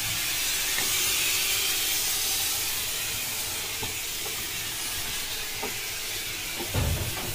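Electric thermal fogging machine hissing steadily as it blows out dense fog of a sanitizer, glycerin and water mix. A short low thump near the end.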